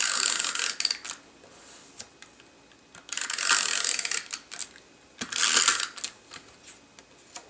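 Hand-held adhesive tape runner being rolled along the edges of a piece of cardstock, laying down adhesive: three runs of about a second each, with small clicks between.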